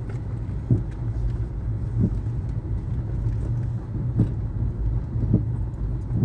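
A car running steadily with a low hum, and a dull knock roughly once a second.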